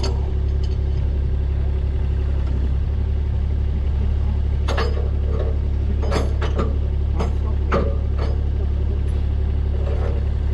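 An engine idling steadily with a low hum, with a scattered series of sharp clanks and knocks from about four seconds in.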